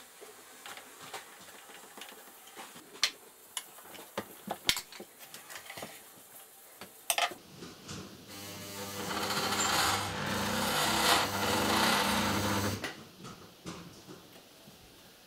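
Scattered clicks and knocks of the machine being handled, then a Kenmore Ultra Stitch 12 sewing machine, fitted with new motor and lug belts, runs for about five seconds, getting louder as it speeds up and then holding steady before it stops.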